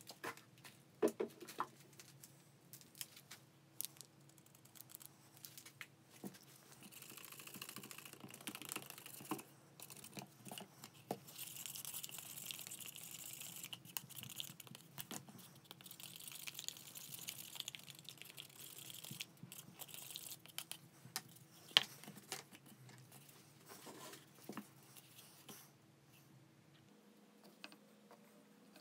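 Wooden stir stick scraping around inside a paper cup as epoxy resin and pigment are mixed, a long scratchy stirring in the middle, with scattered clicks and taps from paper cups and tools being handled. A faint steady hum underneath stops near the end.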